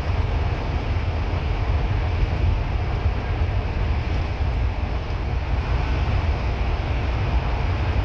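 Bus running at a steady speed: a continuous low engine and road rumble with an even hiss of road noise over it.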